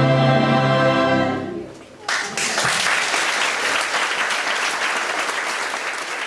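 Choir and small orchestra holding a final chord that dies away after about a second and a half; about two seconds in, the audience breaks into applause, which continues.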